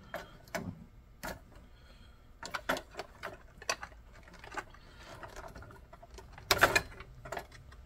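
Scattered clicks and taps of a plastic O gauge model passenger car and its parts being handled and turned over on a work surface, with a louder cluster of knocks near the end.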